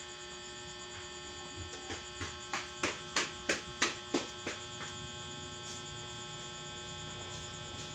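A run of about eleven sharp taps, about three a second, growing louder toward the middle and then fading, over a steady electrical mains hum.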